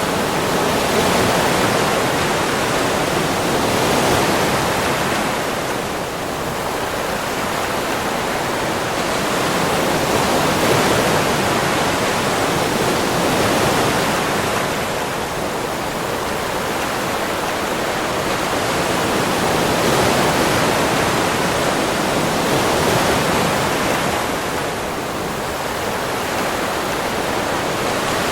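Sea waves on a beach: a continuous rush of surf that slowly swells and eases every few seconds.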